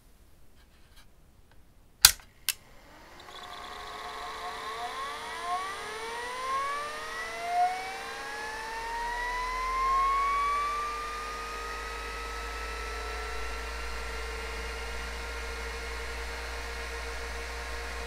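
An 80 MB hard disk in an Atari SH205 case powering up. Two sharp clicks about two seconds in, then the spindle motor spins up with a whine that rises in pitch over several seconds and levels off into a steady running whine with a low hum.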